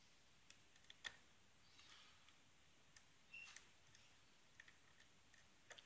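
Faint, irregular clicks and light scrapes of a Peterson medium hook pick working the pins of a six-pin spool-pinned cylinder lock during single-pin picking, with about ten small ticks and one slightly louder click about a second in.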